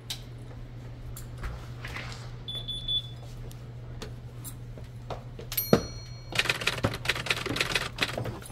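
Scattered sharp clicks and taps over a steady low hum, with a short high beep about two and a half seconds in and another high beep with a thud near six seconds, then a dense clatter of clicks for about two seconds near the end.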